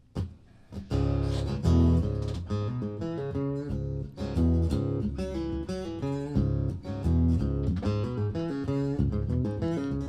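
Acoustic guitar starting about a second in and playing the instrumental opening of a song, picked notes over a steady run of low bass notes.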